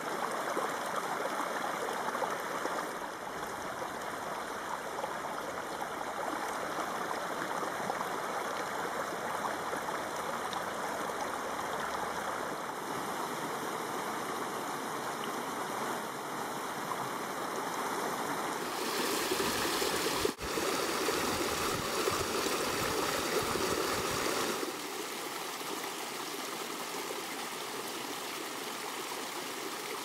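Small rocky mountain creek splashing and trickling over stones in little cascades, a steady rushing of water. Its tone changes abruptly twice past the middle as different stretches of the stream take over.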